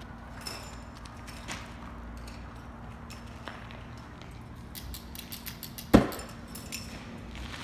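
Oxy-fuel cutting torch being lit: a few light clicks, then one sharp pop about six seconds in as the gas ignites at the tip.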